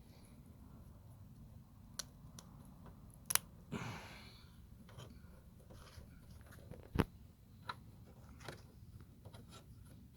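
Scattered small clicks and taps of plastic bulb sockets and wires being handled and pushed into place, with a short breathy noise about four seconds in.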